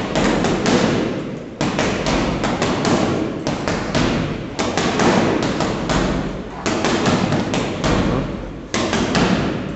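Boxing gloves striking a heavy punching bag in fast series of several punches each, with short pauses between the series.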